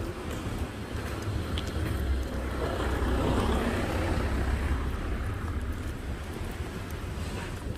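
Wind rumbling on the microphone, with a louder rushing noise that swells and fades about three to four seconds in.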